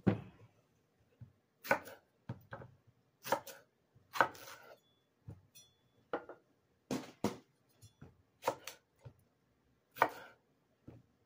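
Chef's knife cutting peeled bananas into thick chunks on a wooden cutting board, each cut ending in a knock of the blade on the wood, in an irregular string of knocks.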